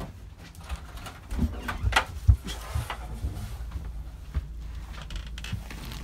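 Footsteps thudding up carpeted wooden stairs, a run of irregular thumps loudest about two seconds in. Then a few faint knocks as a wooden interior door is pushed nearly shut.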